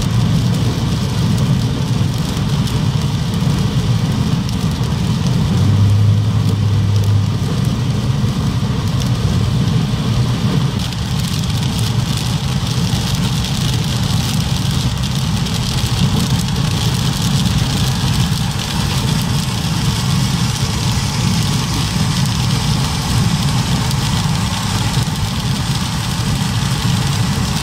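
Inside a car driving on a freeway in very heavy rain: a steady low engine and road rumble, under an even hiss of rain and tyre spray. A brief deeper hum comes about six seconds in.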